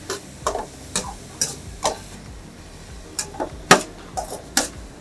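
Metal spatula knocking and scraping against a stainless-steel kadai while onions and mushrooms are stirred and roasted in it. Sharp, irregular taps, about two a second, with a few bunched close together past the middle.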